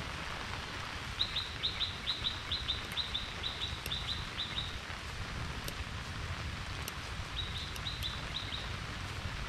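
Steady monsoon rain hissing, with a small bird calling a fast series of short high chirps from about a second in to nearly five seconds, and a shorter run of the same chirps near the end.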